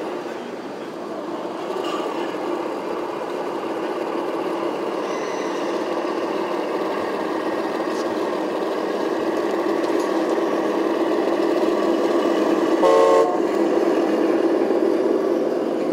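Steady mechanical whir of radio-controlled model trucks' electric motors and hydraulic pumps. A short horn toot comes about thirteen seconds in.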